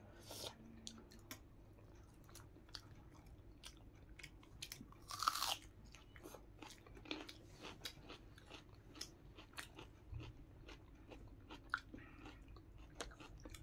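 A person chewing a mouthful of fried potato, with many small wet mouth clicks and crunches, and one louder brief hissing sound about five seconds in.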